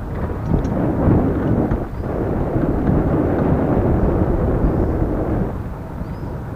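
Wind buffeting the microphone of a camera riding along on a moving bicycle: a loud, low rumble that swells about a second in and again in the middle, then eases near the end.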